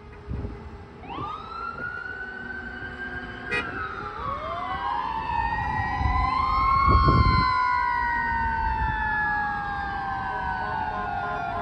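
Fire department emergency sirens of an ambulance and fire engine starting up about a second in, two or more slow wails sweeping up and down over each other. A brief low rumble comes around the middle.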